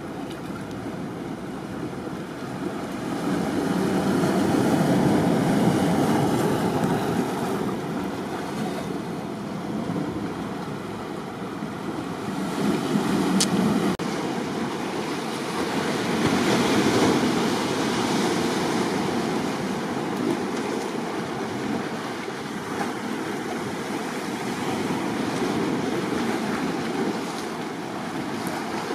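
Sea waves washing and breaking over a rocky shoreline, the surf swelling louder every few seconds and then ebbing.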